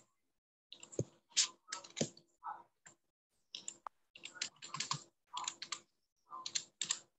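Typing on a computer keyboard: irregular runs of keystroke clicks with short silent gaps between them.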